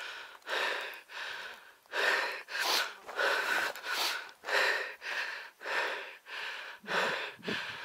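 A person breathing hard and fast close to the microphone, with short rasping breaths about two a second.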